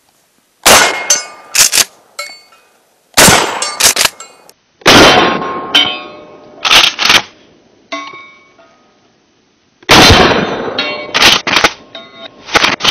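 Mossberg Maverick 88 pump-action shotgun firing 12-gauge Aguila mini shells: five loud shots, most followed by the quick double clack of the pump being racked. Two of the shots set off exploding targets, which makes a longer boom that trails off slowly.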